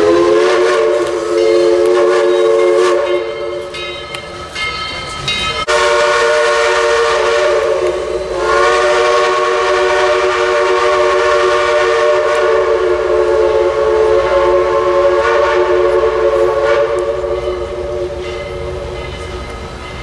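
Steam locomotive's multi-note chime whistle blowing a chord in three long blasts: one of about three seconds, a second starting suddenly about six seconds in, and a last one held for about ten seconds that fades near the end as the train passes.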